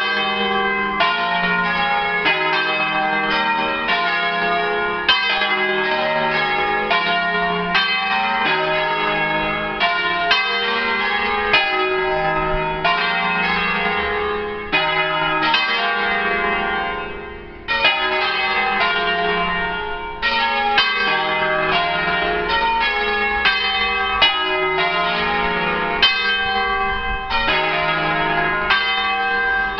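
Full peal of five church bells in E-flat, cast by Crespi in 1950, swinging full circle. Overlapping bell strokes come about two to three a second. The ringing thins briefly about 15 to 17 seconds in, then the full peal strikes again.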